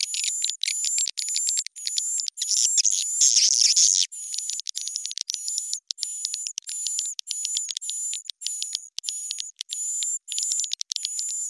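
Swiftlet calling track: rapid, evenly repeated high twittering chirps, about three chirp groups a second, each with a thin high whistle running through it, and a denser, louder flurry of chirps about three seconds in. It is a swiftlet call recording pitched up and sped up, made to be played through tweeters to lure swiftlets into a bird house.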